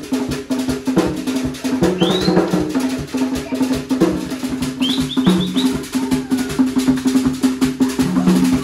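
A group of hand drummers playing a fast, dense rhythm, with held low notes sounding under the beat and a few short, high rising chirps over it at about two and five seconds in.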